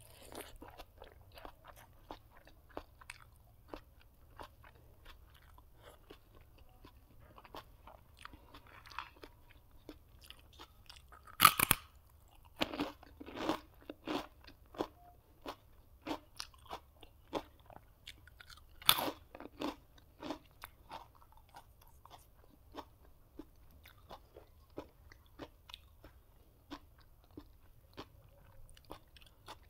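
Close-miked chewing and crunching of food, a steady run of small wet crunches, with two much louder crunchy bites, one about a third of the way in and one about two-thirds in.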